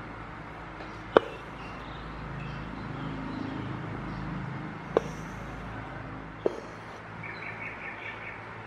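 Needle and thread passing through fabric stretched drum-tight in a wooden embroidery hoop: three sharp pops as the needle punches through, with a soft rasp of thread being drawn through between them. Faint bird chirps in the background, including a quick run of little notes near the end.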